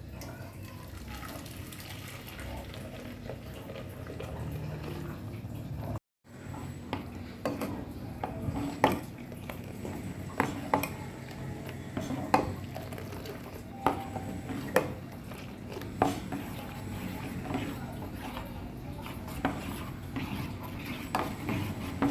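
A metal spoon clinking against a pot or utensil while stirring or mixing, with sharp clinks every second or two over a low steady background. The clinks begin after a brief cut to silence about six seconds in.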